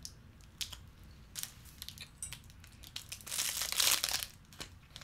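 Protein-bar wrapper crinkling in the hands in short bursts, with a longer, louder stretch of crinkling about three and a half seconds in.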